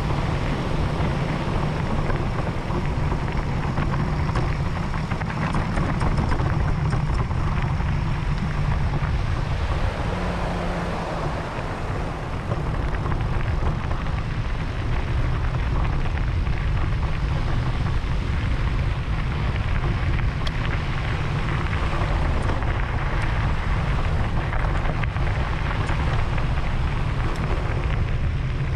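Wind buffeting the camera's microphone with a steady low rumble, over the rough crunch of mountain-bike tyres rolling on a gravel track.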